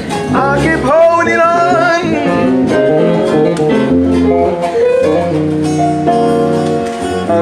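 Live band music: a Nord Electro 3 stage keyboard played along with an electric guitar. A melody line slides up in pitch in the first two seconds, and held chords sustain through the second half.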